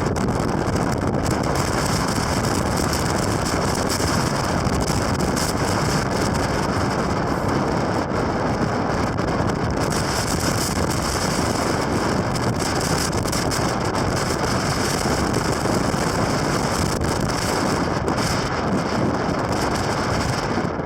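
Strong wind buffeting the microphone: a loud, unbroken rushing rumble.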